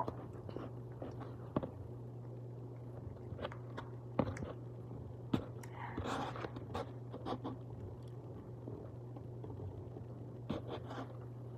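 Close-up chewing and mouth sounds of someone eating macaroni and cheese, with a metal fork clicking and scraping against the plate a few times, over a steady low hum.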